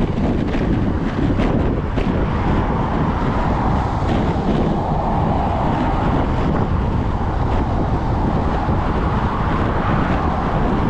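Loud, steady wind buffeting on the microphone of a handlebar-mounted camera on a moving bicycle, with road noise underneath. A car passes close by on the left partway through.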